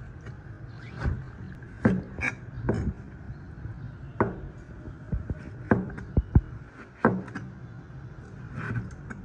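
Irregular sharp knocks and clinks of hard objects being handled in food preparation, about ten in all, over a steady low hum.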